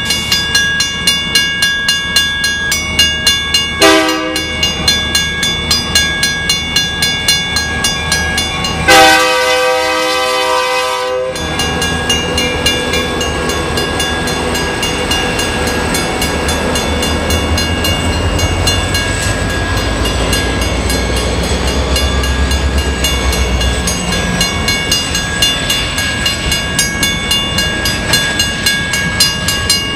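Grade-crossing bell ringing steadily while a diesel-hauled freight train approaches. The lead locomotive's horn gives a short blast about four seconds in and a longer, louder blast from about nine to eleven seconds. The diesel locomotives then pass close by with a deep engine rumble and wheel noise on the rails.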